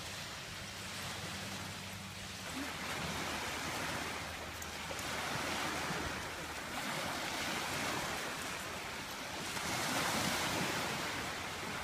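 Waves washing onto a beach: a steady wash of water that swells about two and a half seconds in and again near ten seconds, with some wind on the microphone.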